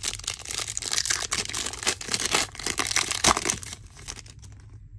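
Trading-card pack wrapper being torn open and crinkled, a dense crackling of many small snaps that lasts about four seconds and then dies down.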